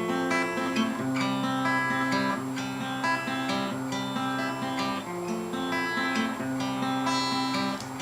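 Acoustic guitar strummed in a steady rhythm between sung verses, no voice.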